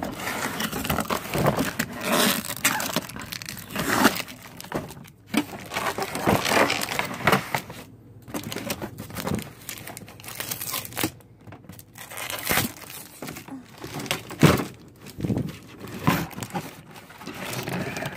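Irregular crinkling and rustling of packaging being handled, with scattered clicks and a sharper knock about fourteen seconds in.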